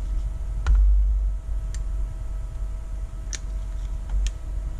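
Four light, scattered clicks over a steady low electrical hum.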